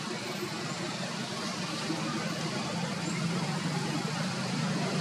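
Steady low hum of a vehicle engine running with broad traffic-like noise, slowly growing louder.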